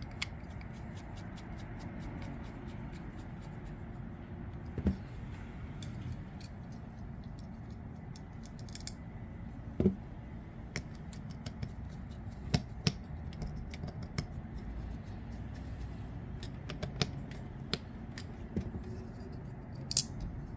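Small metallic clicks and ticks of a folding knife being reassembled with a precision screwdriver: the bit working in a screw, and parts and tools handled and set down. A few louder taps stand out about five, ten and thirteen seconds in, over a steady low hum.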